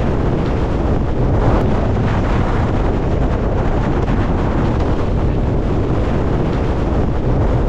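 Very strong wind gusts blowing hard across the microphone: a loud, steady rush of wind noise.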